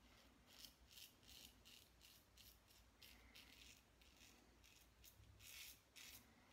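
Braveheart stainless steel safety razor with a Gillette Super Platinum blade scraping through lathered stubble against the grain, in short, faint, scratchy strokes about two a second.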